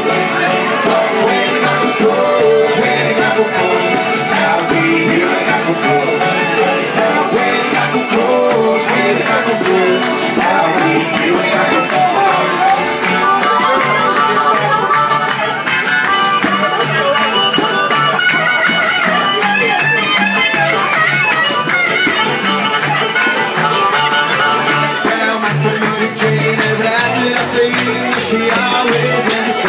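Live bluegrass band playing an instrumental stretch: fiddle over strummed acoustic guitar and banjo, with upright bass keeping a steady beat.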